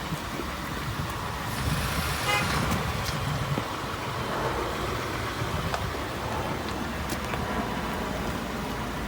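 Ford F-150 with the 5.0 V8 driving, with steady engine and road noise, a few scattered clicks, and a brief horn-like tone a little over two seconds in.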